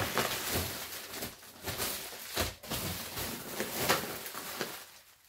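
Bubble wrap and plastic packaging rustling and crinkling as hands shift and lift wrapped items in a cardboard box, with a few sharper crackles along the way. It fades out near the end.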